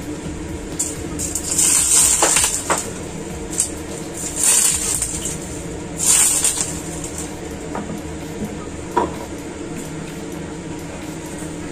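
Hot cooked oil poured from a small pan onto steamed tofu and fish paste, sizzling in three short bursts over a steady background hum, followed by a couple of light clinks as a bottle is handled.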